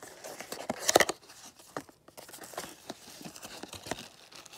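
Small cardboard box being handled and opened by hand: scattered taps, clicks and scrapes of the cardboard, loudest in a cluster about a second in.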